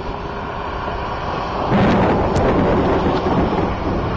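Thunder: a sudden crack about two seconds in that rolls on into a loud rumble, over a steady rushing background.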